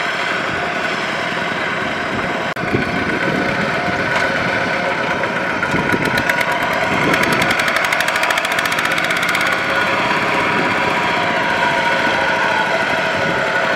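Kubota RT140 walking tractor's single-cylinder diesel engine running steadily with a knocking beat while the machine is bogged in deep mud, growing louder for a few seconds in the middle.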